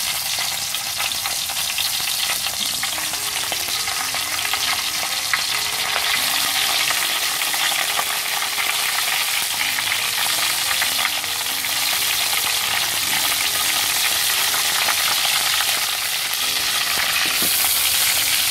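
Pieces of marinated snake frying in hot oil in a pan: a steady, dense sizzling crackle.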